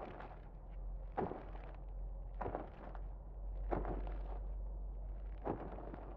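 Five short, sharp thuds at about one to two second intervals: a cartoon kiwi's beak jabbing into the ground. A steady low hum runs underneath.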